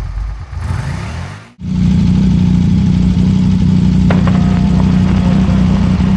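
A short intro jingle ends about a second and a half in. Then an Aprilia Tuono V4's V4 engine idles steadily.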